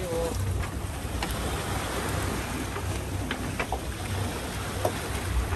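Sailing yacht under way on lake water: a steady hiss of water washing along the hull, with a low engine drone underneath and a few faint clicks.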